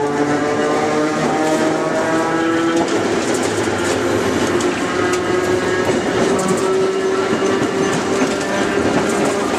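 Traction motors and gears of Kotoden's vintage 5000-series electric railcar No. 500 whining as it accelerates, the whine rising in pitch for about the first three seconds and then holding steady, with the wheels rumbling and clacking over rail joints and points.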